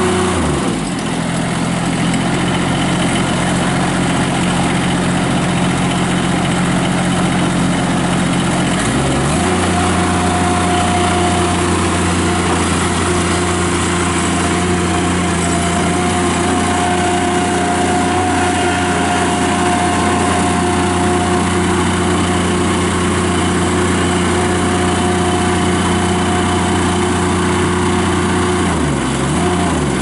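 Toro Dingo TX525 mini skid steer's engine running steadily as the machine drives on its rubber tracks. Its pitch drops about half a second in, steps back up around nine seconds and dips again near the end.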